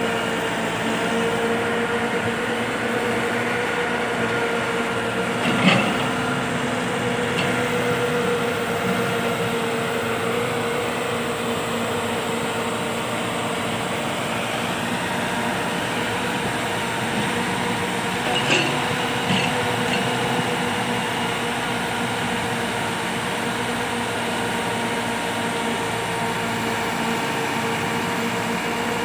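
Massey Ferguson 375 tractor's diesel engine running steadily under load while driving the excavator arm's hydraulics, with a steady whine over the engine drone. Two sharp knocks stand out, about six seconds in and again about two-thirds of the way through.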